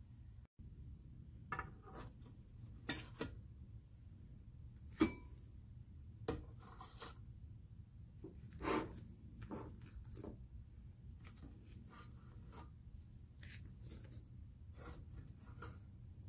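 Metal kitchen tongs lifting steamed buns from a stainless steel steamer basket onto a ceramic bowl: scattered light clicks and knocks, with brief rustles of the paper liners under the buns, over a steady low hum.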